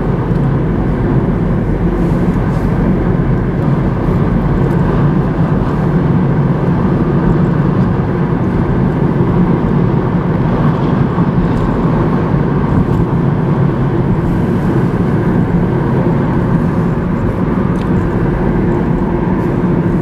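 Steady road and engine noise of a moving car, heard from inside the cabin.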